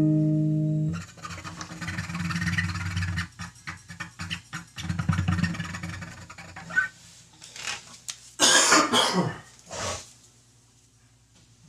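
A guitar chord rings out and is cut off about a second in. Scattered clicks and rustling follow, with one loud noisy burst a little past eight seconds, then near quiet.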